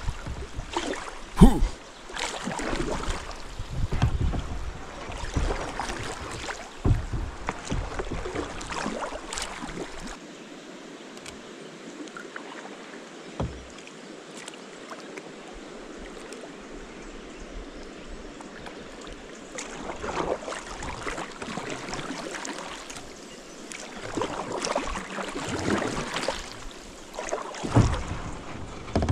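Kayak paddle strokes splashing in the water, each blade dip and pull making a burst of splashing, with a pause of several seconds in the middle where only gentle water noise remains. A sharp knock about a second and a half in stands out as the loudest sound.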